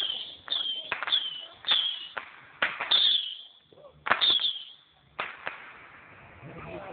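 A long string of firecrackers going off in about ten sharp, irregularly spaced bangs. The loudest comes at the very start, and the bangs stop about five and a half seconds in.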